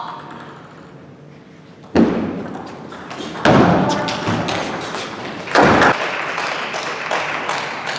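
Table tennis rally: the celluloid ball tapping off bats and table, with three sudden louder knocks about two, three and a half and five and a half seconds in, ringing briefly in the hall.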